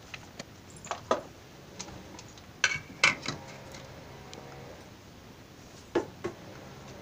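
Kitchen utensils and containers being handled: a handful of short clicks and knocks at uneven intervals, the loudest about three seconds in and a pair near the end.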